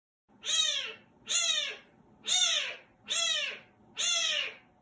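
White kitten meowing five times, about one call a second, each call rising and then falling in pitch. This is the repeated crying of a kitten not yet settled in its new home.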